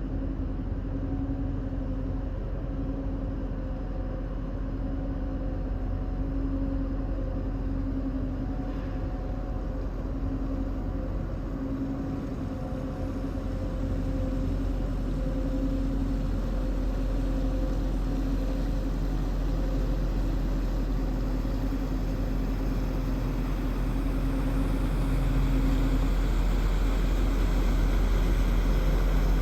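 Heavy engine idling with a steady hum over a deep rumble, growing gradually louder toward the end.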